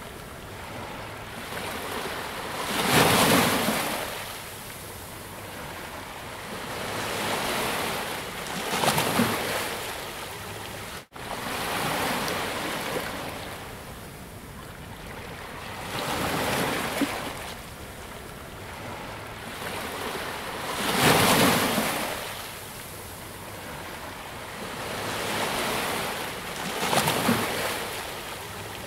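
Ocean surf washing onto a beach: waves swell and break in long surges about every five to six seconds, five in all, with a split-second gap in the sound about eleven seconds in.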